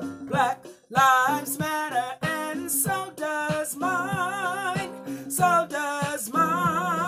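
A woman singing, holding notes with a wide vibrato, over acoustic guitar accompaniment.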